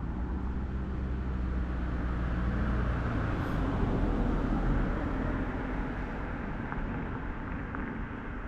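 A motor vehicle's engine humming low and steady, which fades after about three seconds over constant outdoor background noise.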